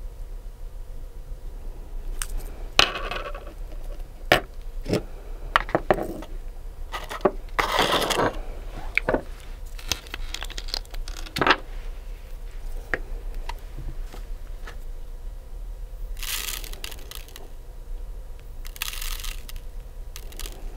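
Nail-art work at close range: sharp little clicks and taps of tools and small bottles being handled, with short scraping hisses, the longest about eight seconds in and a few more near the end.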